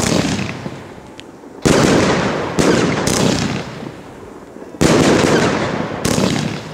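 Wolff 'Cruelty' consumer firework firing four shots that break in the air. Each sudden bang is followed by a dense crackle that dies away over a second or so.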